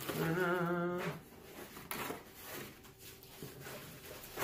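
A man's wordless hum, about a second long, then faint rustling of cardboard with a couple of soft knocks as a box lid and flaps are folded open.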